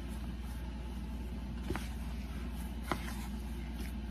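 Hands kneading masa dough in a plastic bowl, with two short knocks about two and three seconds in, over a steady low hum.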